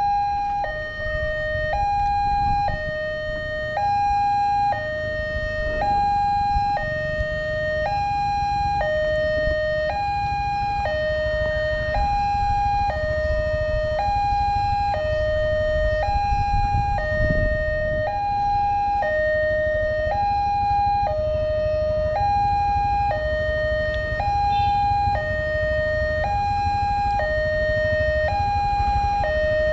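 Electronic two-tone warning siren of an Indonesian railway level crossing, switching between a higher and a lower tone, each held about a second, with a steady low rumble underneath. It sounds while the crossing's red lights flash and the barriers are down, warning that a train is approaching.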